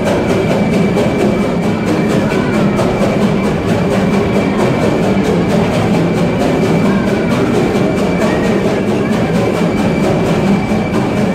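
Steam locomotive working slowly through a rock tunnel, its exhaust chuffs running on in an even rhythm and echoing off the walls, with a steady high tone over them.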